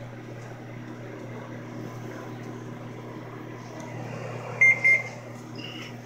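Built-in microwave oven running with a steady low hum. Two short high beeps sound close together near the end.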